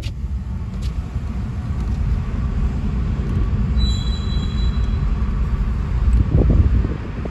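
Freight train's covered hopper cars rolling past, a steady low rumble heard from inside a car. A faint high tone sounds briefly about four seconds in.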